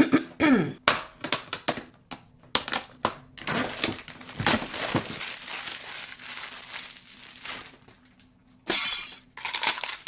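Plastic packaging crinkling and hard plastic kit parts clicking and clattering as a toy kit is unpacked, with a loud rustle about nine seconds in.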